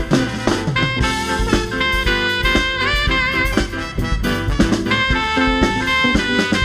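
Upbeat swing-jazz music: a saxophone lead over a band with a drum kit keeping a steady beat.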